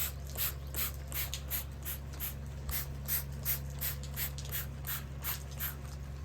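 Rhythmic hand scrubbing strokes on a hard surface, about three a second, over a steady low hum.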